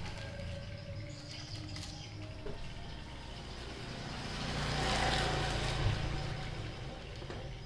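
A vehicle passing by: a low steady rumble with a broad noise that rises to a peak about five seconds in and then fades. Faint bird chirps.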